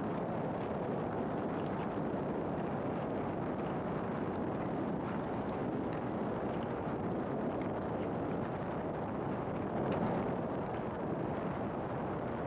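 Steady road noise of a car on the move, a mix of tyre and wind noise, swelling slightly about ten seconds in.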